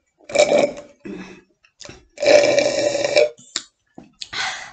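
A woman burping loudly: a short burp just after the start, then a longer, drawn-out one about two seconds in.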